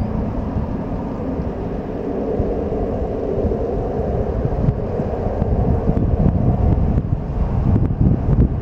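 Airbus A380's Rolls-Royce Trent 900 engines running at taxi power, a steady drone, with wind rumbling on the microphone.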